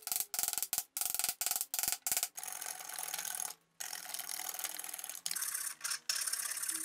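Rasp strokes scraping along a maple axe handle held in a vise: short separate strokes, about two to three a second at first, then after about two seconds a steadier, more continuous scraping on the wood.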